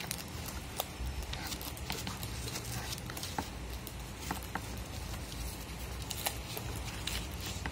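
Scissors cutting paper: short, sharp snips at irregular intervals over a steady low rumble.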